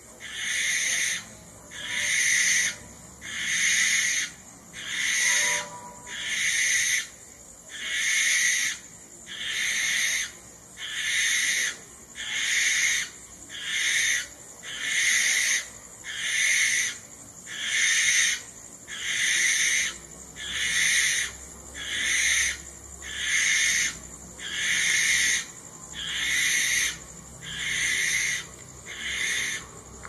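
Barn owl (Tyto alba) giving a long series of harsh, hissing screeches, about one a second, each lasting around half a second.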